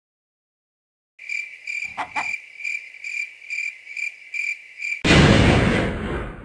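Cricket chirping, a regular high chirp about two and a half times a second, used as a silence gag over the motionless raw chicken; it starts about a second in after dead silence. About five seconds in it is cut off by a loud burst of noise that fades away.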